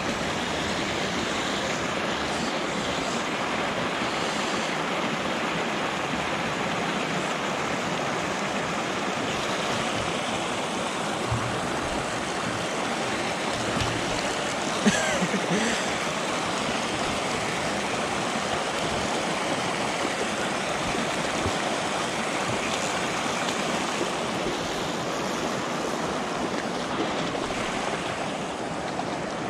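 Steady rush of flowing water, even and unbroken, with one brief sharp click about halfway through.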